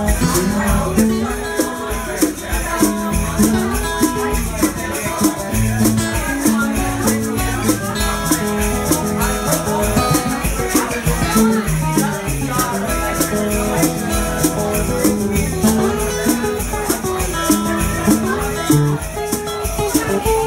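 Live instrumental passage: a guitar and hand percussion, with bongos and a fast, steady shaker-like rattle keeping the beat.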